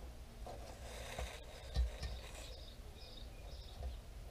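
Faint handling sounds of a T10 Torx bit and small wrench being worked on the TPMS sensor screw inside a truck tire rim: a few soft knocks, the loudest a little under two seconds in. Faint, short, high chirps repeat in the background.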